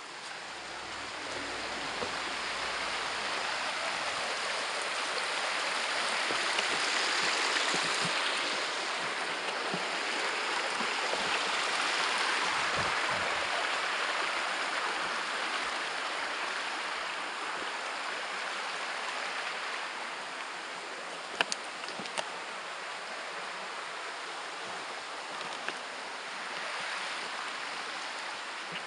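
Small woodland stream flowing, its rush swelling for a while and then easing back. A few sharp clicks sound about two-thirds of the way through.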